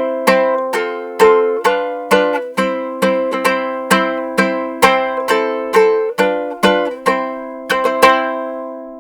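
Handmade tres hondureño, a plucked string instrument, strummed in a steady run of chords about two a second, with the chords changing along the way. The last chord rings on and fades near the end.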